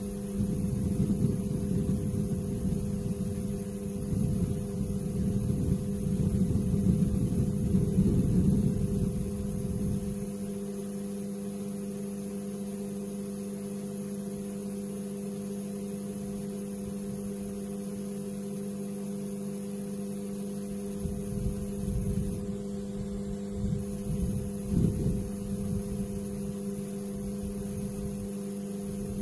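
A steady hum with several fixed tones, under a low uneven rumble that dies away about ten seconds in and returns in short spells past twenty seconds.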